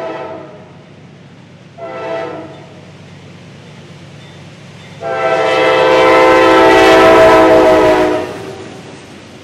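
Norfolk Southern diesel locomotive air horn sounding as the train approaches: the end of a long blast, a short toot about two seconds in, then a long, loud blast from about five to eight seconds as the lead unit draws close. The locomotives' engines and the ballast train run underneath as a steady low rumble.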